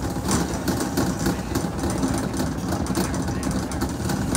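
Shopping cart rolling across a hard store floor, its wheels and wire basket rattling steadily, picked up close by a phone resting on the cart.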